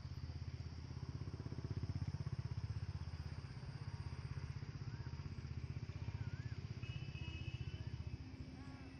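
A motor engine running steadily, loudest about two seconds in. A few short high chirps come over it in the second half.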